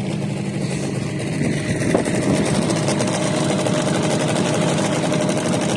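Small boat's outboard motor running steadily under way, with a steady higher tone joining its hum about two seconds in.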